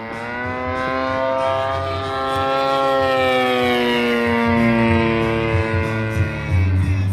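DA-120 twin-cylinder gasoline engine of a large aerobatic RC plane running at high throttle in flight: a steady, loud drone whose pitch rises a little, sags slowly over several seconds, then drops near the end.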